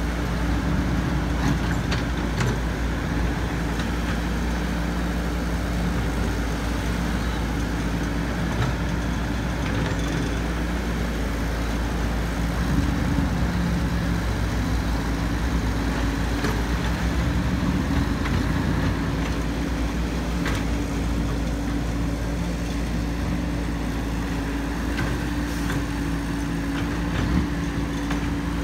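Diesel engine of a Caterpillar E120B hydraulic excavator running steadily under load as the machine digs and swings.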